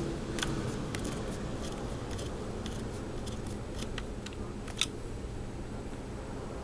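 Scattered light clicks and taps of laptop parts being handled and fitted during reassembly, with one sharper click nearly five seconds in, over a steady low hum.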